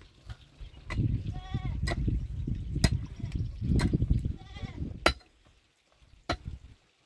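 Small livestock bleating twice, short wavering calls over a low rumble, with sharp knocks about once a second.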